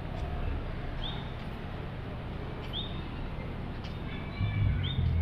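A small bird calling over and over: a short high note with a lower trailing phrase, three times about two seconds apart, over a steady low background rumble. Low, dull bumps near the end are louder than the calls.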